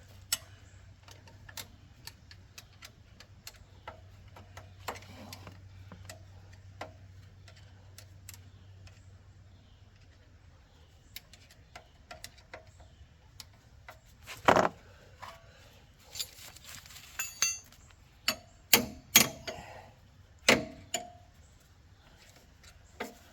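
Hand tools and bolts clinking and knocking against metal while a front strut is fitted, with scattered light clicks and several louder knocks in the second half.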